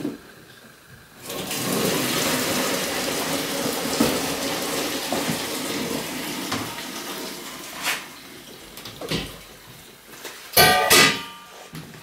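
Water rushing and splashing into a kitchen sink as a cooking pot is emptied and rinsed, stopping after about six seconds. Near the end a few knocks and a ringing metal clank as the pot is set down on the gas hob's grate.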